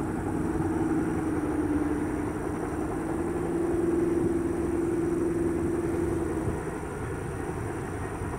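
Boeing CH-47 Chinook helicopters running on the ground, a steady low drone with a hum that fades about six and a half seconds in.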